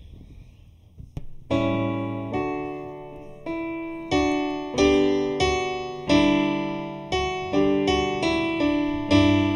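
Electric keyboard with a piano sound playing the introduction to a worship song, coming in about a second and a half in. Each chord is struck and fades before the next.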